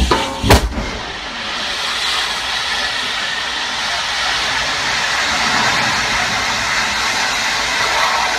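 A sharp bang about half a second in as a fire beside a garbage truck flares up, then a steady, loud rushing hiss of a tall column of flame burning.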